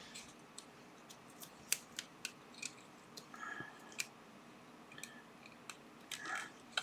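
Scattered light clicks and taps of small hard objects being handled on a workbench, with a few brief rustles.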